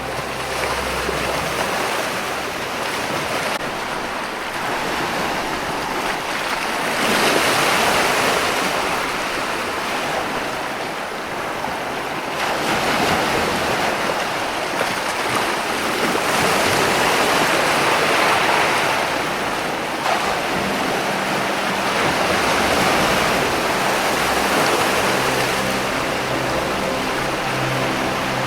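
Ocean waves surging against rocks: a continuous rush of surf that swells and eases every few seconds, loudest about seven and seventeen seconds in.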